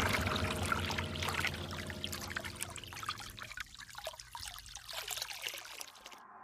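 Water trickling from a plastic spigot into a drinking glass, growing fainter toward the end.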